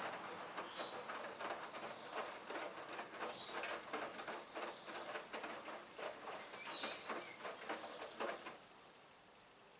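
Hoover front-loading washing machine tumbling a heavy load of wet laundry: irregular sloshing and patter from the turning drum, with brief high squeaks about every three seconds. The tumbling stops about a second before the end, leaving a low steady noise.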